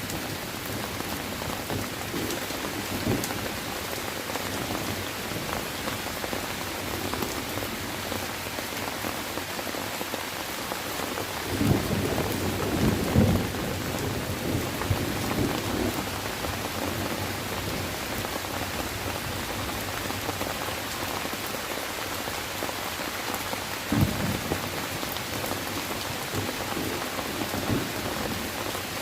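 Steady rain falling, an even hiss. A few short, low rumbles of thunder come through it about twelve seconds in and again a little later.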